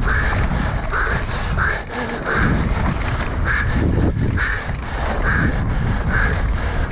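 Wind buffeting an action camera's microphone and trail rumble from an electric mountain bike being raced down a muddy enduro stage. A short, soft sound recurs a bit more than once a second, in the rhythm of the rider breathing hard with exertion.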